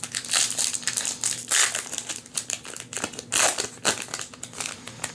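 Plastic wrapper of a trading-card booster pack crinkling in irregular crackly bursts as it is handled and opened.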